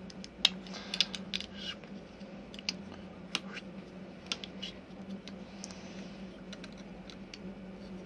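Small plastic clicks and taps from an action figure's snap-on plastic armor being handled and opened, densest in the first two seconds and sparser after, over a steady low hum.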